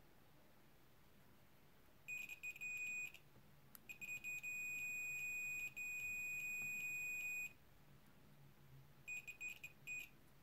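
DT33A digital multimeter's continuity buzzer beeping, a steady high tone that sounds while the probe tips touch and cuts in and out as contact makes and breaks. It sounds for about a second, then for a longer stretch of about three and a half seconds with brief dropouts, and stutters briefly near the end.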